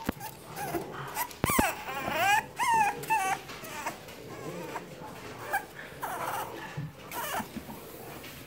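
5.5-week-old puppies whimpering and squealing: a run of high, wavering cries a second or two in, then a few shorter, fainter whimpers.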